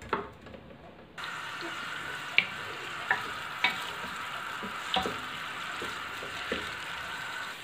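Sliced onions sizzling in hot oil in an aluminium pressure cooker as they are browned. The hiss starts suddenly about a second in, and a spoon stirring them knocks and scrapes against the pot about six times.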